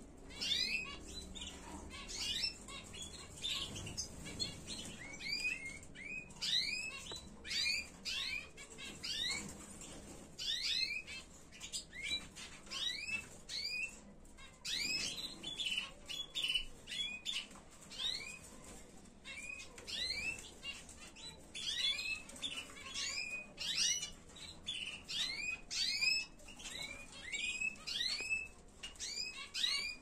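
A room of caged European goldfinches and canaries twittering: many quick, high chirps from several birds overlap almost without pause.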